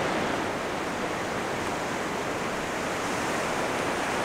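Surf washing onto a beach: a steady, even rush of waves with no breaks.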